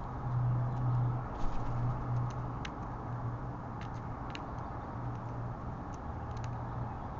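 Outdoor background noise: a low hum that swells and fades under a steady hiss, with a few faint, scattered clicks.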